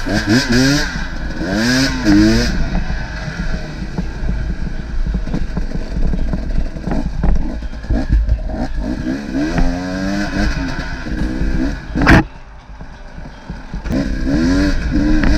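Off-road motorcycle engine revving, its pitch rising and falling with the throttle over rough ground. A single sharp knock comes about twelve seconds in.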